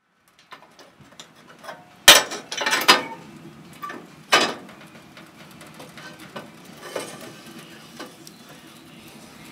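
Metal clanks and clicks of a wood stove's door and latch being worked, loudest in a clatter about two seconds in and a single knock just after four seconds. Then the light crackle of the wood fire burning inside.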